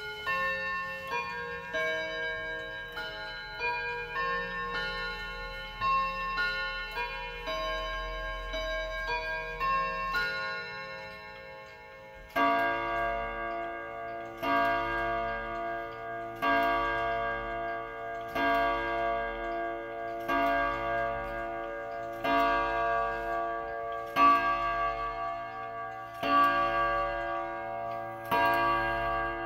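1970s President chime-box wall clock playing its full-hour chime melody, one ringing note after another, for about twelve seconds. Then it begins striking ten o'clock, one deeper multi-note strike about every two seconds.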